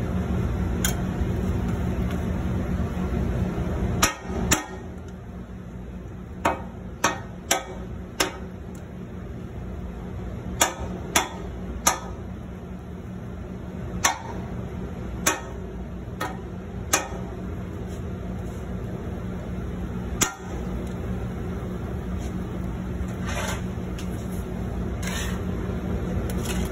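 Metal spatula striking a flat steel griddle while a dosa is chopped into pieces: about fifteen sharp, irregularly spaced clacks, most of them between about four and seventeen seconds in. A steady low hum runs underneath.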